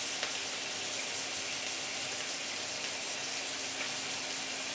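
Carrots, meatballs and egg sizzling steadily in a hot oiled wok, just after oyster sauce has been poured onto them, with a faint steady hum underneath.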